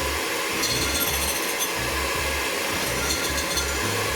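Electric mixer running steadily, beating eggs in a bowl for cupcake batter.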